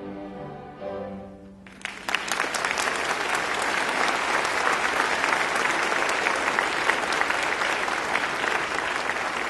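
A student string orchestra of violins and cellos holds its final notes. About two seconds in, the audience breaks into applause, which goes on steadily.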